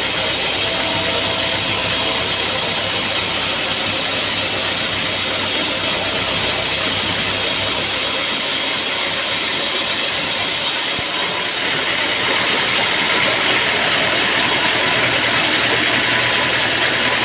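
Engine-driven sawmill machinery running steadily. The sound changes slightly a little over ten seconds in.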